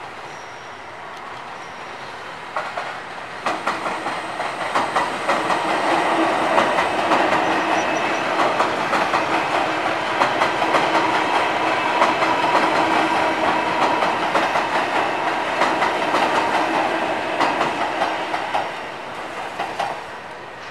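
Electric multiple-unit passenger train passing on the line, its wheels clacking over the rail joints in quick repeated beats under a steady hum. It builds about two and a half seconds in, holds loud, and fades near the end.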